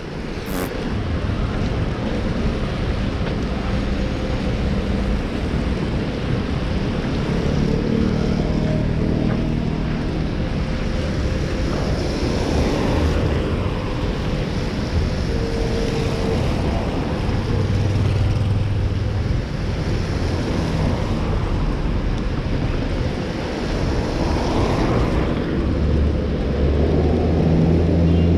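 Street traffic in the rain: a steady hiss of tyres on wet road and rain, with the low hum of passing vehicles swelling about two-thirds in and again near the end. A single sharp click comes just after the start.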